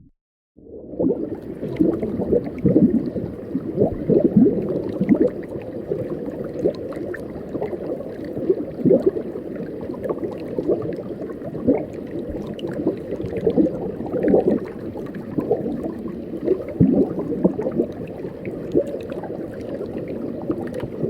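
Underwater sea ambience recorded by divers. A steady low rush is dotted with many brief bubbling sounds, starting about half a second in and fading out near the end.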